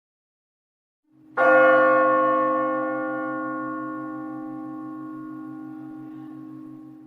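A single bell strike about a second and a half in, ringing on with a long, slow fade and a low hum that throbs beneath it.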